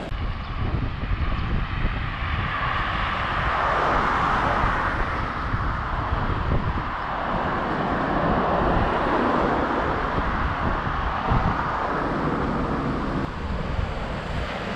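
Wind buffeting the microphone over the wash of sea surf, the surf swelling up twice.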